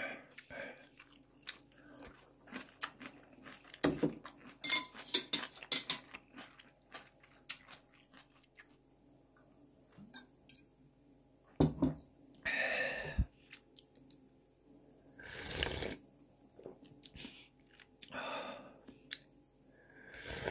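Close-up eating of stone crab: many small crunches and cracks of hard shell and chewing over the first several seconds, then, after a quiet stretch, three longer sucking sounds as the meat is drawn out of the shell.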